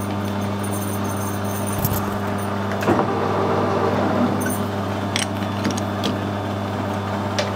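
Metal lathe running with a steady hum while it turns the angled seating face of a steam waggon valve, with a few light clicks and taps.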